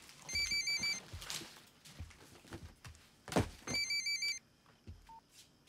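Mobile phone ringing with an electronic trilling ring tone, two rings about three and a half seconds apart, with a couple of soft knocks between them.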